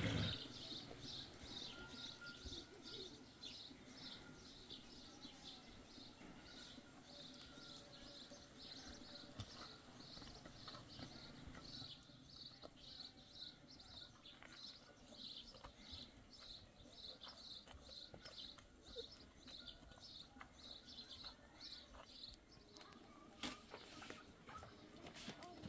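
A small bird chirping over and over, about two to three short high chirps a second, faint; the chirping stops a few seconds before the end, and a few sharp clicks follow.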